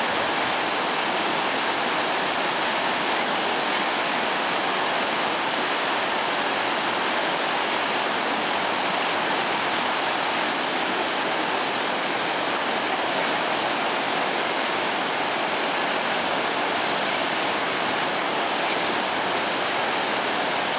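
Floodwater rushing and churning through a breach in a washed-out earthen bridge road, a steady, unbroken rush of falling water.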